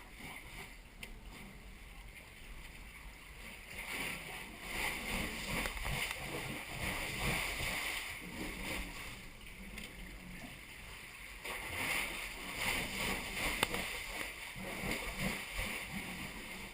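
Water splashing and sloshing around a sea kayak, louder in two spells, from about four seconds in and again from about twelve seconds in.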